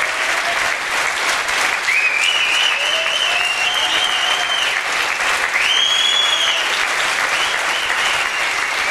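Audience applauding and cheering at the close of a concert, with several long whistles over the clapping.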